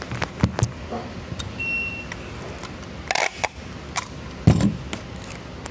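Handling noise: scattered knocks, clicks and rustles as a phone is set down and clear packing tape is taken from a tape dispenser, with a louder thump about four and a half seconds in. A short high beep sounds about one and a half seconds in.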